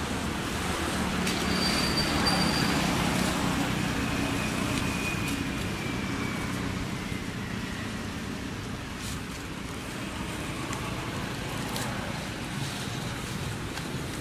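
Road traffic noise: a motor vehicle's engine hum is strongest in the first few seconds and then fades into a steady background roar of traffic.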